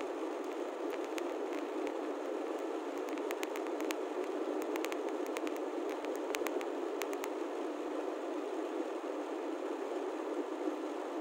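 Steady road and tyre noise inside a moving car's cabin, with scattered light clicks through the first two-thirds.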